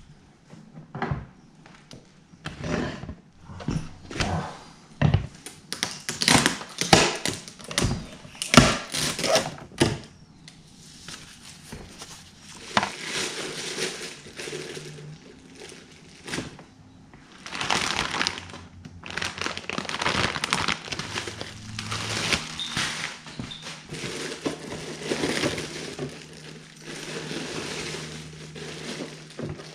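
Plastic packing bags and wrap crinkling and rustling as they are pulled out of a clear plastic container and handled. The first ten seconds hold many sharp crackles and knocks; after that the crinkling runs on in long dense stretches.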